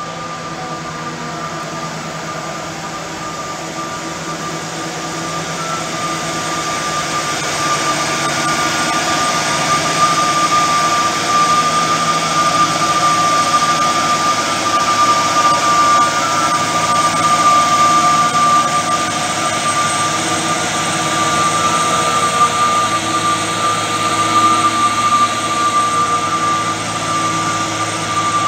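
Matisa Universal Tamper 4.0 track tamping machine running as it moves slowly past, its engine noise topped by a steady high whine. The sound builds over the first eight seconds or so and then holds.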